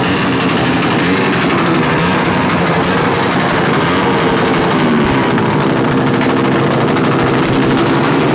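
Suzuki Raider 150 single-cylinder motorcycle engine revving while its exhaust backfires in a rapid, continuous string of pops, the revs dipping and climbing again around the middle.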